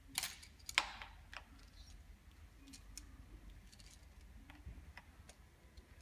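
Light clicks and taps of a hand tool and cables being handled at a bicycle's handlebar stem: three sharper clicks in the first second and a half, then a few faint ticks.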